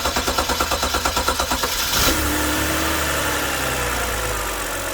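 BMW E90's six-cylinder engine cranking on the starter for a couple of seconds before it catches, then running at idle as the revs settle. It is the long, hard start that persists after the VANOS solenoids were cleaned.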